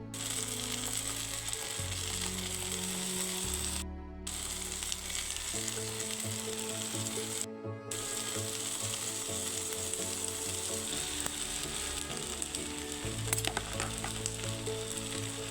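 Food sizzling as it fries in hot oil, a steady hiss that cuts out briefly twice.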